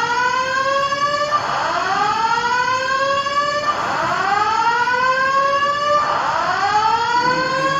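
Airport building fire alarm sounding its evacuation tone: a slowly rising whoop that resets and repeats about every two and a half seconds.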